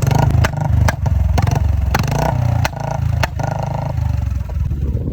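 Royal Enfield Bullet 350 single-cylinder engine with a modified exhaust, revved in repeated blips, with about half a dozen sharp backfire pops from the exhaust.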